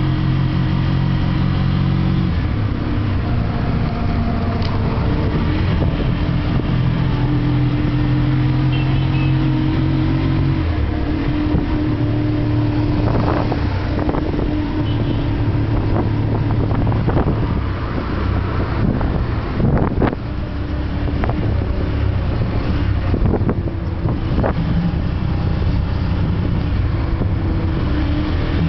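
An engine running steadily, its pitch shifting in steps now and then, with scattered knocks and clicks through the middle stretch.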